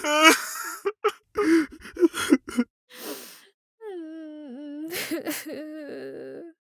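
A string of short human vocal sounds: a sharp gasp-like cry, a few short breathy bursts, an exhaled breath, then a long held voiced tone that dips in pitch partway through.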